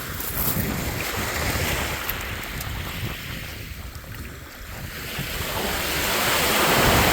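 Lake Superior waves washing onto a sand beach, easing off midway and swelling into a louder breaking wave near the end, with wind rumbling on the microphone.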